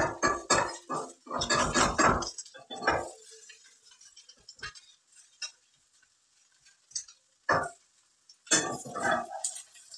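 A spatula scraping and knocking against a frying pan while working a Maggi noodle-and-egg mixture. It comes in bursts: a quick run of taps at the start, a denser scraping flurry about a second and a half in, scattered single clinks, then another flurry near the end.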